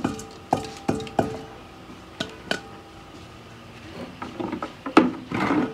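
Stainless steel bowl knocking against a steel pot of rice: half a dozen sharp, ringing metal clinks, then a denser clatter of metal with a loud knock and a short rattle near the end.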